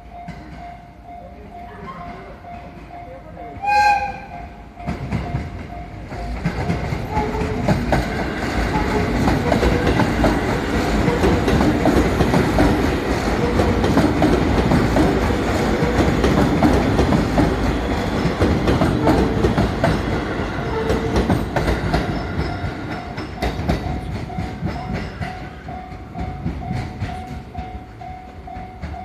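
A JR 211 series electric train gives one short, loud horn blast about four seconds in, then passes close by with a long run of wheel and rail clatter that builds, holds and fades away. A level-crossing warning bell rings faintly and steadily underneath.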